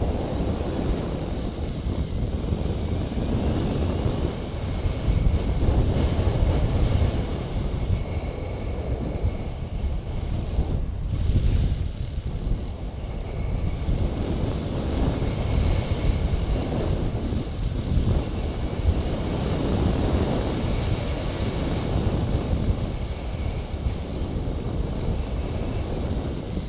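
Wind buffeting an action camera's microphone as it is carried through the air under a tandem paraglider in flight: a steady rush of noise, heaviest in the low end, that swells and eases every few seconds.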